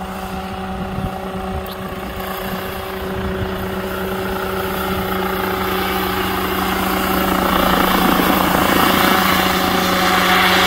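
Unmanned remote-controlled crop-spraying helicopter flying while spraying pesticide, its engine and rotor running with a steady drone. It grows louder as the helicopter comes closer and is loudest near the end.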